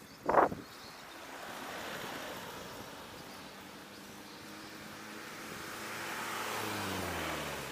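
Wind and road noise from riding along an asphalt road, with one sharp knock about half a second in. Near the end a passing vehicle's engine swells and drops in pitch as it goes by.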